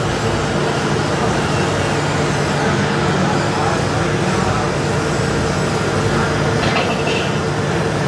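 Steady drone of RC model trucks running, over the murmur of a busy hall, with a brief high-pitched tone about seven seconds in.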